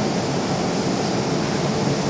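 Steady, even rushing of air-handling ventilation inside a metro train car standing at a platform with its doors open.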